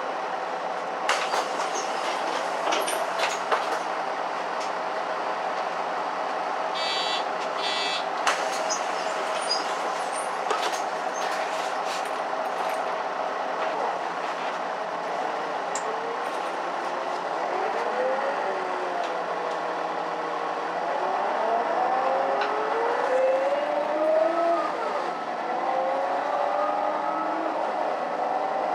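Cabin sound of a Mercedes-Benz Citaro (O530) city bus. For the first half the engine runs steadily under scattered rattles and clicks. From about halfway the engine and gearbox whine rises and drops back several times as the bus accelerates through its automatic gears.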